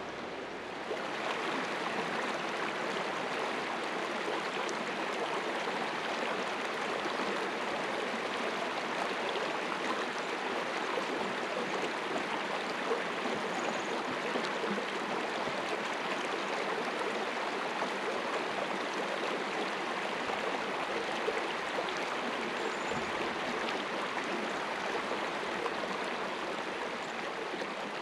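Shallow creek babbling over rocks and stones, a steady rush of running water that gets a little louder about a second in.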